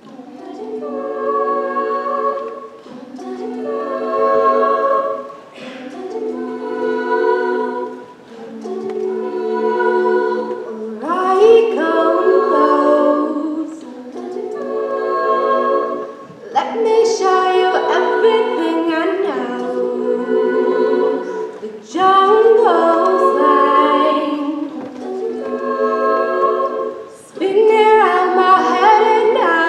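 A cappella group of men and women singing in close harmony without instruments, entering together after a quiet pause. The chords come in phrases that swell and fade every two to three seconds, growing fuller about a third of the way in.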